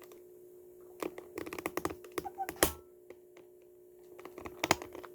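Hands handling things up close: a quick run of light clicks and taps for about two seconds, a pause, then a few more taps near the end, over a steady low hum.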